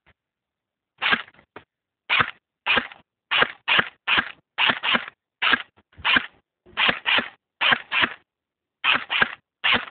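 Airsoft gun firing a rapid string of single shots, roughly two a second, some fired in quick pairs.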